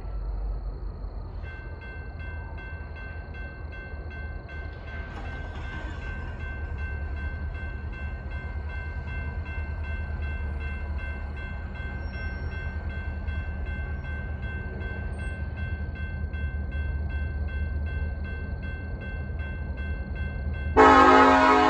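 A grade-crossing warning bell starts ringing about two seconds in and rings steadily over a low rumble. Near the end the lead BNSF SD70ACE's Nathan K5HL five-chime horn starts to sound, loud.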